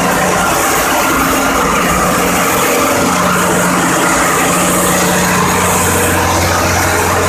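Loud, steady din of a ship's engine-room machinery running, diesel engines with a constant hum under a wash of mechanical noise. A deeper hum grows stronger near the end.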